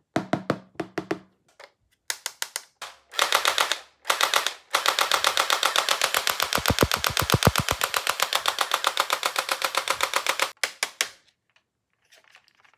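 Toy gun's electronic machine-gun sound effect: rapid rattling shots at about ten a second, first in a few short bursts, then in one long burst of about six seconds.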